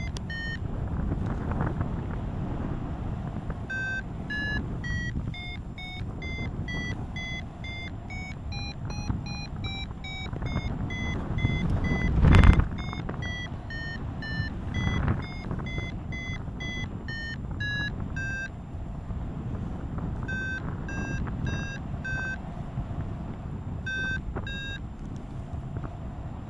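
Paragliding variometer beeping about twice a second, its pitch rising and then falling back, the vario's signal of climbing that strengthens and then eases, over steady wind noise on the microphone. A loud gust of wind hits the microphone about halfway through, and the beeping stops for a couple of seconds near the end.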